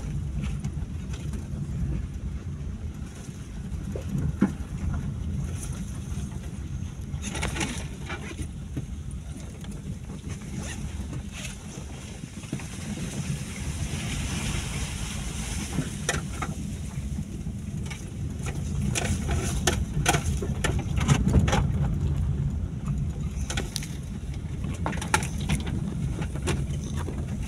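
Car cabin noise on a rough dirt track: a steady low rumble of engine and tyres, with scattered short knocks and rattles as the car goes over bumps.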